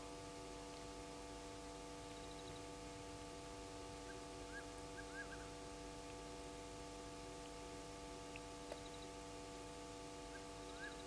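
Night ambience at a bush waterhole: a steady layered drone with faint quick ticking, and a few clusters of short chirping calls about halfway through and again near the end.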